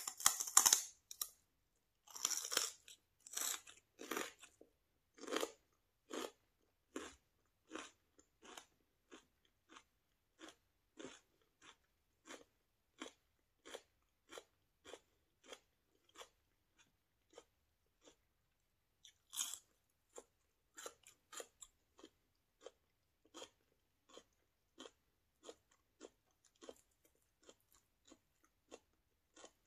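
Crisp celery stalk with hummus bitten and chewed close to the mouth. Loud crackling crunches come in the first few seconds, then a steady rhythm of softer crunchy chews a little over one per second. Another loud crisp bite comes about two-thirds of the way through.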